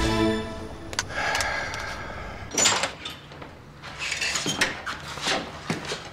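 A room door being pushed open, with a sharp knock from the door and latch, followed by a few light footsteps and clicks as someone walks in carrying a tray.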